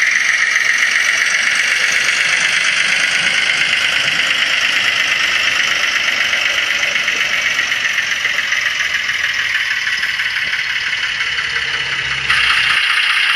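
Diesel engine sound from the sound chip in a Gauge 1 Märklin Köf model locomotive, played through its small onboard speaker. It runs with a fast, even pulse and fades slowly as the locomotive pulls its wagons away. Near the end it suddenly gets louder and a steady tone joins it.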